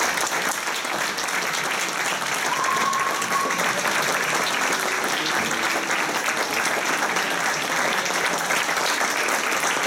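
An audience applauding steadily, with dense, even clapping, for musicians taking their bows at the end of a piece.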